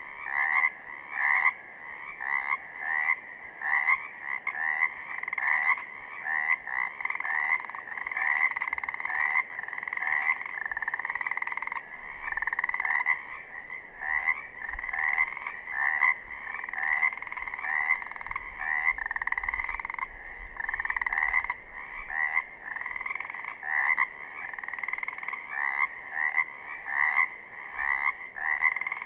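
A chorus of Pacific chorus frogs (Pseudacris regilla): males' advertisement calls, short croaks repeated in quick succession by several frogs at once, overlapping without a pause.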